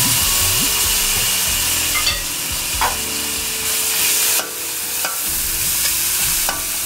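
Aromatics and sauces sizzling in oil in a stainless steel wok, stirred and scraped with a metal spatula, with a few sharp clicks of the spatula against the pan.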